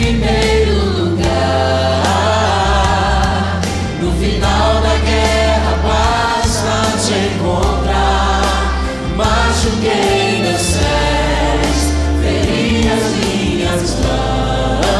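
A mixed group of men and women singing a gospel song together in Portuguese over an instrumental backing with a steady bass line.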